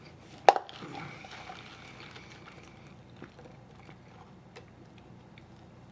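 A sharp knock about half a second in, then faint sipping of an iced drink through a straw from a plastic cup.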